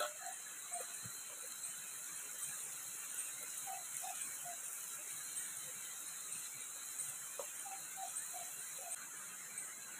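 Cut long beans stir-frying in an aluminium wok over a portable gas stove: a steady sizzle, with a wooden spatula stirring and scraping against the pan. A short high chirp repeats a little more than once a second throughout.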